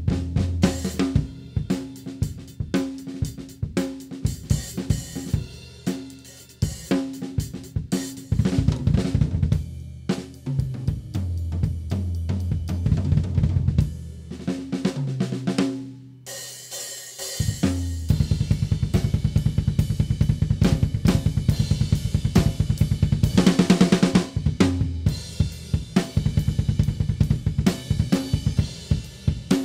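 PDP MX maple-shell drum kit played: strokes across the toms, snare and bass drum with the toms ringing, a brief break a little past the middle with one tom ringing out, then a fast, steady, louder groove with hi-hat and cymbals over it.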